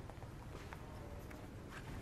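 Faint outdoor background: a steady low rumble with a few light ticks.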